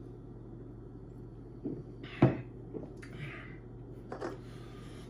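A drinking glass set down on a wooden table with a sharp knock about two seconds in, with a few softer taps around it.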